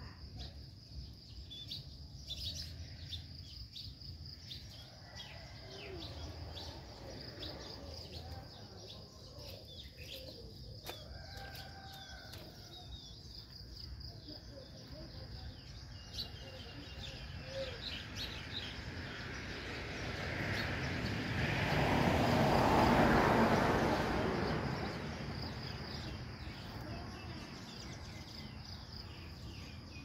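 Birds chirping over a steady high-pitched insect drone, with a broad swell of noise that rises, peaks about two-thirds of the way through, and fades again.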